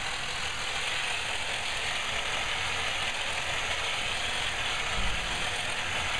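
Steady mechanical whirring noise of a running machine, with a brief low thump about five seconds in.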